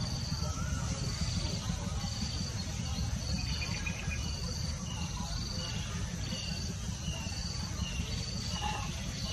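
Insects calling: a steady high drone under a short, even chirp that repeats about once a second, joined about halfway by a second, lower repeating note that falls in pitch. A low steady rumble runs underneath.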